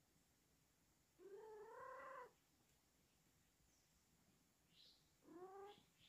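Domestic tabby-and-white cat meowing twice: a drawn-out, wavering meow about a second in and a shorter meow near the end.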